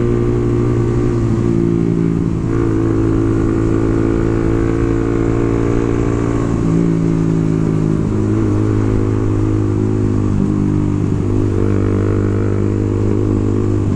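Suzuki GSX-R150's single-cylinder engine running at a fairly even speed while being ridden. The pitch shifts slightly a few times as the throttle changes.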